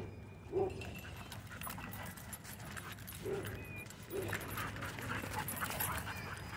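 Dogs play-fighting, with three short, low barks about half a second, three and four seconds in, a brief whine, and a patter of small clicks in the second half.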